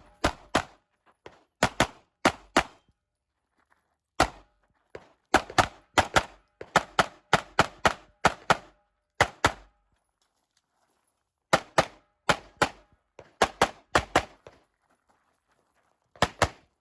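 Pistol gunfire from a CZ Shadow 2 9mm shooting a USPSA stage: fast pairs and short strings of shots with short pauses between them, most likely moving between shooting positions or reloading.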